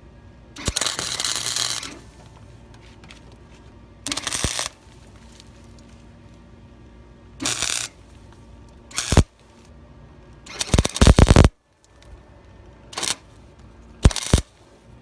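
Flux-core wire-feed welder tack-welding a sheet-metal patch panel: seven short bursts of arc noise, each starting and stopping sharply. The first and longest lasts about a second; the others are brief tacks.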